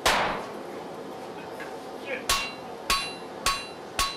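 Blacksmith's hammer striking red-hot iron on an anvil. One heavy blow comes first, then about two seconds in four ringing strikes a little over half a second apart.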